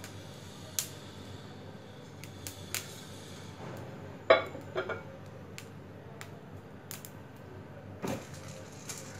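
Whole spices heating in a hot pan: scattered sharp pops and ticks over a low steady hum, with the loudest couple of pops about four seconds in.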